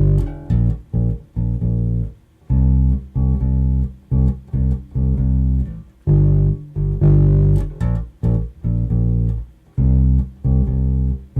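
Bass guitar playing the root notes G, B flat and C in a syncopated rhythm: short clipped notes and longer held notes, with brief silent gaps between them.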